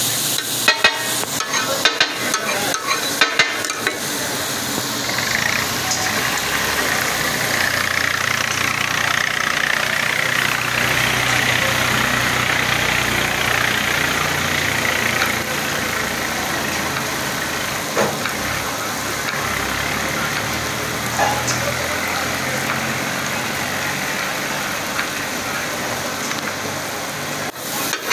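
Meat sizzling on a large flat iron griddle (tawa), with steel spatulas clacking rapidly against it for the first few seconds and again near the end. A low steady hum runs underneath.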